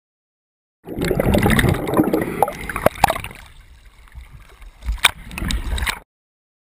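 Sea water sloshing and gurgling around a waterproof action camera's housing at the ocean surface, with a few sharp knocks against the housing. It starts about a second in and cuts off suddenly near the end.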